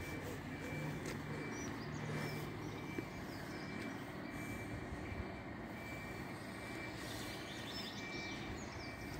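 A bin lorry's engine running some distance off, with a faint high beep repeating at an even pace from its warning beeper.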